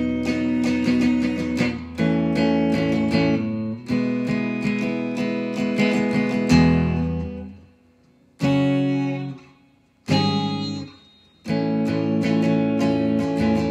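Red Epiphone hollow-body electric guitar strummed in chords in a steady rhythm. After about seven seconds the playing breaks into a few separate ringing chords with short gaps between them, and steady strumming resumes near the end.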